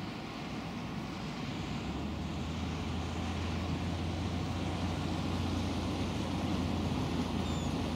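Traffic on a nearby road: cars passing with a steady tyre-and-engine rumble that grows louder from about two seconds in.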